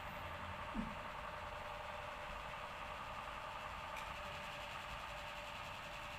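A steady mechanical hum, with a short low thump about a second in.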